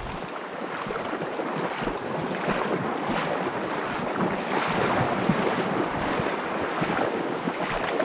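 Shallow river water rushing steadily over a gravel riffle, close by.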